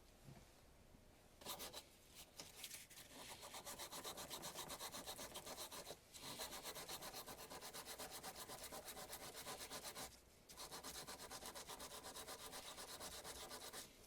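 Rapid back-and-forth rubbing strokes by hand, about five a second, as in sanding, in three runs broken by brief pauses about six and ten seconds in.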